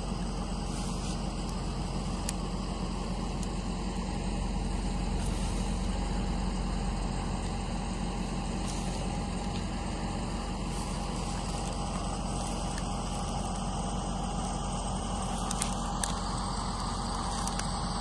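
Steady drone of farm machinery engines running, with a faint steady whine on top and no change in speed.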